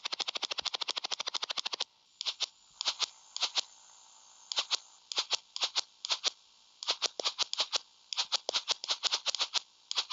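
YM2203 sound chip generating effects from its noise generator: fast, even pulses of noise in a helicopter effect that stop about two seconds in, then short hissy noise bursts in pairs and small groups, a maracas-style shaking pattern.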